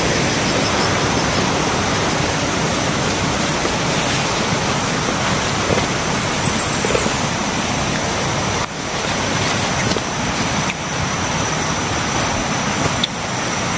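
Steady rushing of a river, a loud even roar of flowing water, with a few faint knocks in the second half.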